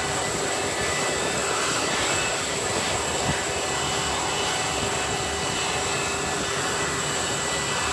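Concorde's Olympus 593 turbojet engine running steadily on a test stand: an even rushing noise with a steady high turbine whine over it.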